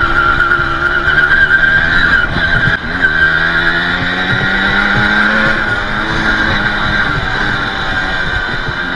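Balkan 50's 50 cc two-stroke engine running while the bike is ridden, its pitch rising and falling with the throttle.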